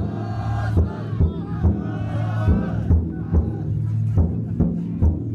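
Futon taiko float's drum beaten in a steady rhythm, about two to three strokes a second, while a crowd of bearers chants and shouts in unison over it.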